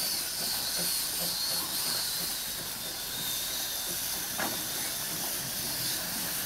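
Quarry Hunslet narrow-gauge steam locomotive letting off steam: a steady hiss of escaping steam, with a faint knock about four seconds in.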